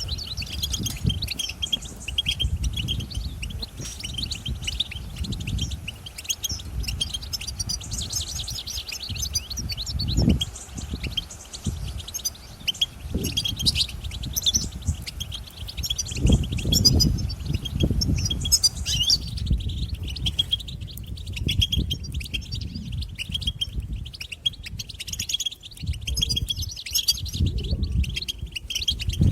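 Many European goldfinches twittering and chattering together in a dense, continuous stream of high, quick notes. Loud low rumbles and thuds sound underneath at intervals.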